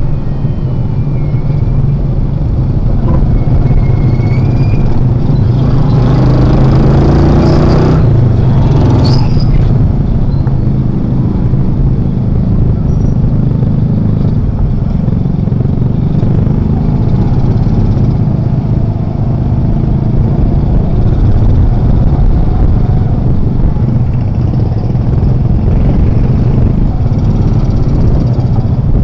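Motorcycle engine of a tricycle taxi running steadily under way. Its pitch rises for a couple of seconds about six seconds in as it accelerates.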